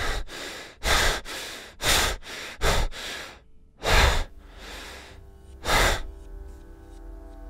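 Heavy, rapid breathing: a series of loud gasping breaths in and out, close to the microphone. About five seconds in, a low, steady drone of held tones comes in underneath.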